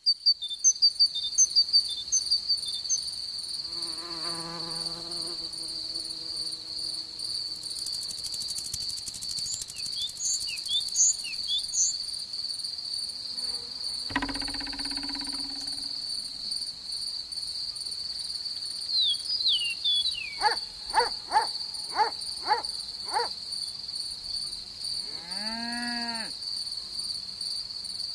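Cricket chirping in a steady, high, pulsing trill. Over it come short chirps and squeaks, a brief buzz, a noisy burst about halfway through, a quick run of rising-and-falling sweeps, and one curved call near the end.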